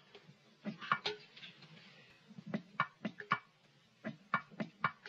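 Oil can being pumped onto the Tin Man's rusted jaw: about a dozen short, sharp clicks in uneven groups.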